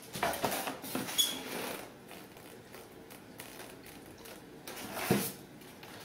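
Packaging being handled: a polystyrene foam lid is scraped and lifted out of a cardboard box, with a few knocks and rustles in the first second or so and a sharper knock about five seconds in.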